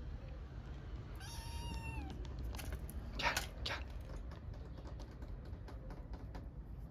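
A hungry stray kitten gives one meow, begging for food, about a second in. A few short scratchy rustles follow.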